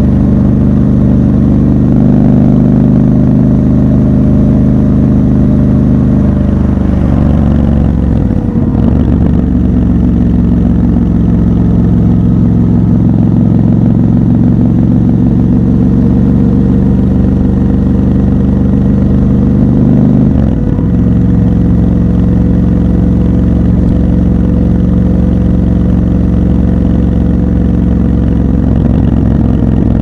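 Triumph Scrambler 1200 XC's 1200 cc parallel-twin engine running steadily while the motorcycle cruises. The engine note breaks and shifts briefly twice, about seven seconds in and again about twenty seconds in, then settles back to a steady drone.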